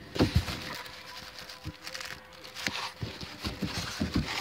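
Cardboard model-kit boxes being shifted inside a cardboard shipping box: rustling and scraping with several soft knocks.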